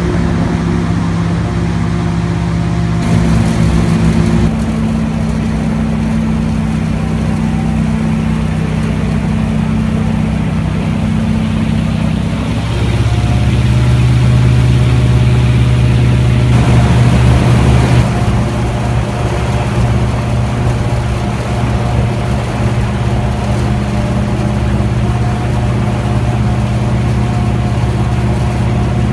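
Airboat engine and propeller running under way, a steady drone that drops in pitch and grows louder about twelve seconds in, then eases back a little around eighteen seconds.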